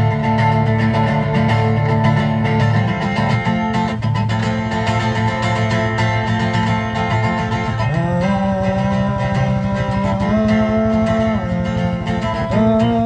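Guitar strummed in a steady country-style rhythm, with a held melody line above it that slides between notes from about eight seconds in.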